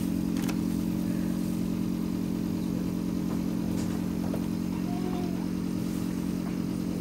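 Steady low mechanical hum of a running motor, even in level throughout, with a few faint clicks.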